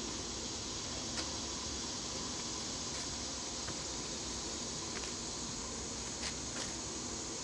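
Steady background hiss with a faint hum, broken by a few light clicks or taps.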